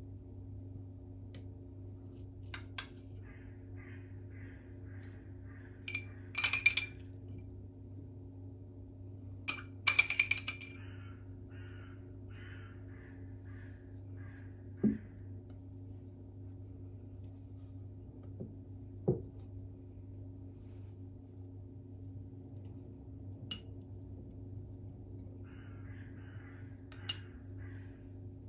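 Glassware clinking in a few short ringing clusters, about two and a half, six and ten seconds in, over a steady low hum; two soft knocks follow later.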